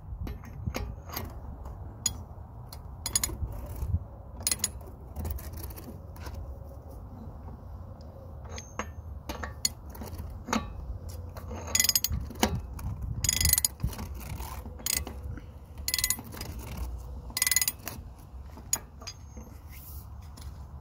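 Large ratchet clicking in runs as it spins a castle nut down onto a truck's front hub, with metal clinks and taps between the runs.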